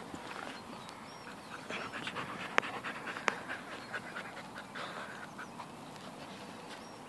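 Two dogs play-wrestling, panting and snuffling in short irregular bursts. Two sharp clicks come a little under a second apart near the middle.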